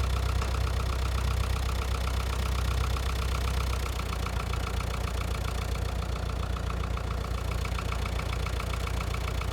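Kubota M7500DT diesel tractor engine idling steadily, a low even hum with a fast regular pulse.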